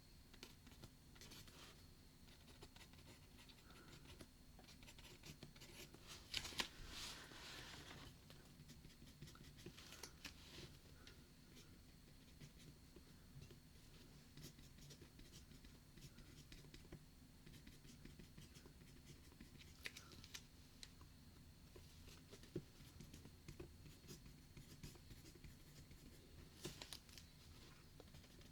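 Faint writing on paper: a light scratching with scattered small taps, and a louder stretch of scratching about six seconds in, over a steady low room hum.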